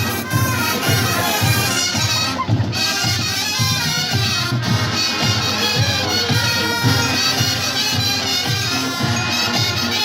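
Marching band playing: brass instruments carrying a tune over a steady drumbeat of about two beats a second.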